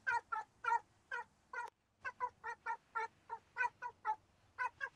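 Domestic cat meowing in a rapid run of short, repeated cries, about four a second with a brief break a little under two seconds in: insistent calling for an owner who has gone downstairs.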